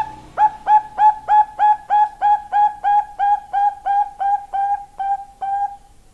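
Female zebra dove (perkutut, Bangkok song line) giving a long series of short cooing notes, about three a second, each sliding up quickly to a steady pitch, the notes slowly weakening toward the end.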